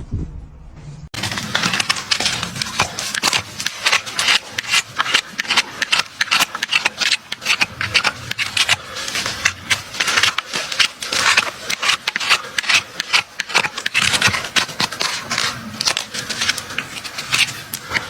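Farrier tools scraping and clicking on a horse's hoof as it is trimmed, in rapid, irregular strokes that start abruptly about a second in.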